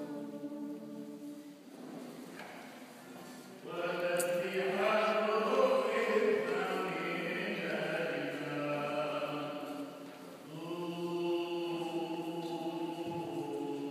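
Small church choir singing a slow Orthodox liturgical chant without instruments, on long held notes in a reverberant hall. The singing gets louder about four seconds in and falls back briefly near ten seconds.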